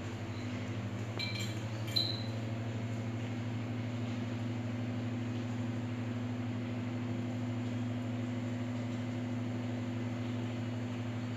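A dog's stainless steel food bowl clinks with a short metallic ring, twice between about one and two seconds in, as a toy poodle eats kibble from it. A steady low electrical hum runs underneath.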